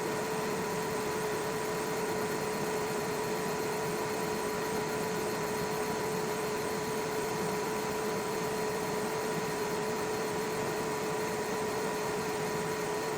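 xTool F1 Ultra fiber laser engraver running: a steady fan hiss with a constant mid-pitched whine.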